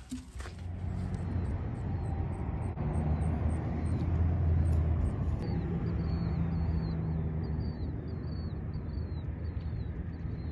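Outdoor ambience: a steady low engine drone that swells and eases off. From about halfway in, a short high falling chirp repeats about twice a second.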